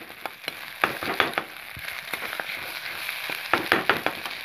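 Scrambled turkey-egg bhujia sizzling in a wok as a spatula stirs it, with a few sharp knocks and scrapes of the spatula against the pan about a second in and again past three seconds.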